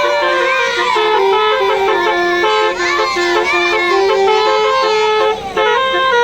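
Basuri telolet air horn playing a tune: a run of held notes stepping up and down in pitch, with a short break about five seconds in.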